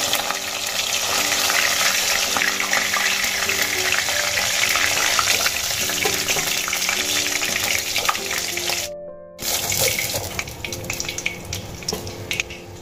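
Rohu fish head and tail pieces sizzling as they shallow-fry in hot oil in a kadai: a steady hiss. About nine seconds in the sound breaks off for a moment; after that the sizzle is thinner, with scattered clicks of a spatula against the pan.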